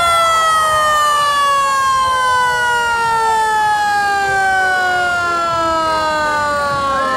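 Mechanical siren winding down, its pitch falling slowly and evenly through the whole stretch, with shorter wavering tones rising and falling over it.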